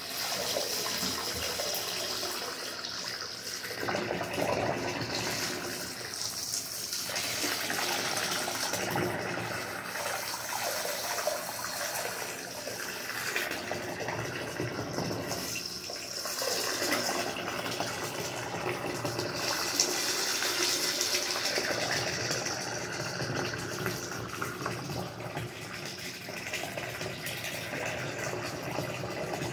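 Running water pouring and splashing steadily, its tone shifting every few seconds as the flow strikes something different.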